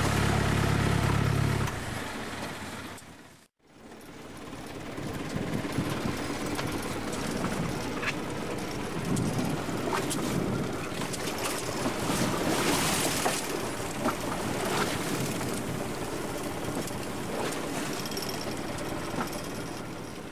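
Fishing boat's engine running with a steady hum, falling away about two seconds in as the throttle lever at the helm is worked. After a short break, the boat's engine idles under a steady rough noise with scattered clicks and knocks while longline is handled over the side.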